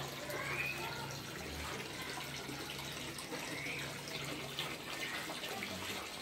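Steady running, splashing water with a low hum under it, and two short rising chirps.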